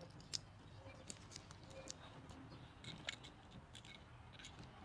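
Faint, scattered clicks and light metallic taps from machined aluminium slingshot parts being handled and fitted together, with a sharper click about a third of a second in and another about three seconds in.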